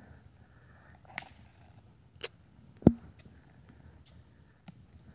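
A few sharp clicks and knocks at uneven intervals, the loudest a deep thump about three seconds in, over a faint steady high-pitched whine with short chirps.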